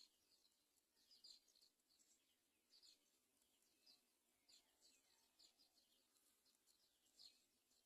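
Faint bird chirps: short, high chirps repeating about once or twice a second over a low steady hiss.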